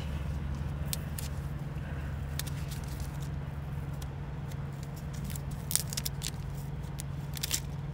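A steady low engine hum, like a diesel idling nearby, with a few short clicks from handling parts.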